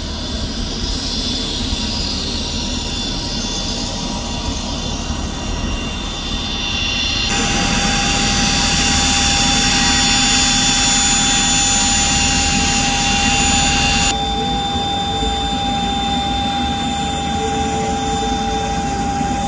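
Turbofan engines of a twin-engine business jet running at idle on the ground: a steady whine of several pitched tones over a low rumble. The sound jumps louder about seven seconds in and drops back about seven seconds later.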